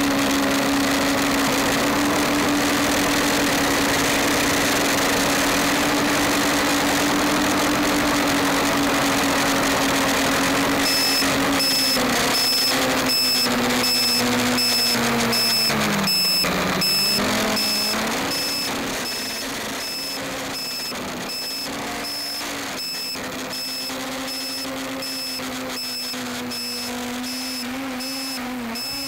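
RcTimer Spider quadcopter's brushless motors and propellers whining steadily in flight, with wind on the onboard microphone. About a third of the way in, a rapid, evenly repeating high beep starts and keeps going. Past the halfway mark the motor pitch dips and wavers as the quad slows and descends, and the sound gets somewhat quieter.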